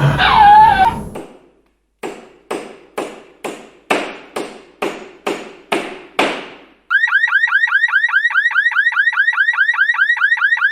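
A wailing, up-and-down gliding tone ends about a second in. After a short gap come about ten sharp knocks, roughly two a second. Then an electronic alarm starts: a fast run of rising chirps, about seven a second, like a car alarm.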